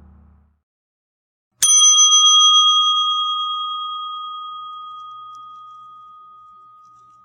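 A small metal bell struck once about a second and a half in, ringing with a bright, clear tone that slowly fades away. Before it, the tail of a lower sound dies out.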